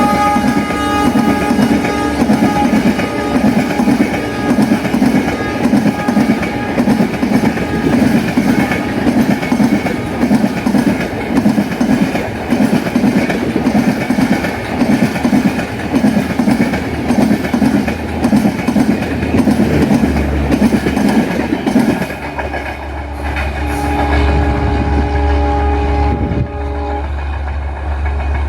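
Passenger coaches of an Indian Railways train hauled by an EMD diesel locomotive running past, wheels clacking steadily over the rail joints. The tail of the locomotive's horn dies away in the first couple of seconds. The clacking stops about 22 s in, leaving a low rumble with a steady pitched tone for a few seconds near the end.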